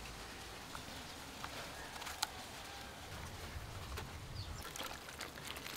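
Faint outdoor ambience with a few sharp, light clicks, and a quick run of small taps and clicks near the end.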